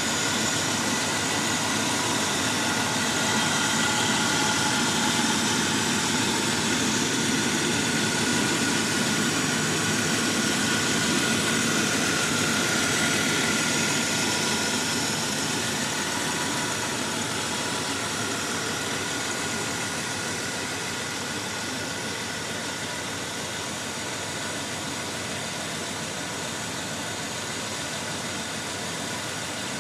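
A 1987 Avanti's Chevrolet V8 idling steadily, heard up close in the open engine bay. It grows a little quieter in the second half.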